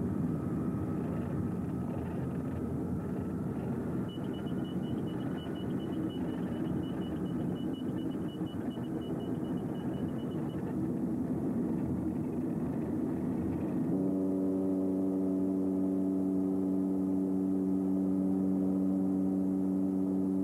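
Cabin noise of a Beech King Air turboprop, a steady rumbling roar, with a faint rapid high beeping from about four to ten seconds in. About two-thirds of the way through it gives way abruptly to a steady drone of several held tones.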